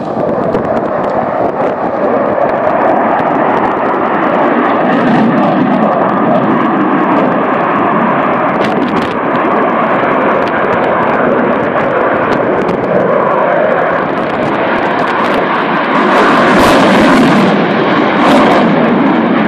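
An aircraft flying over, its engine noise loud and steady throughout, growing a little louder near the end.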